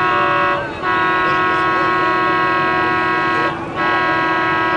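Boat horns sounding long, loud, steady blasts, broken by two brief gaps about half a second and three and a half seconds in.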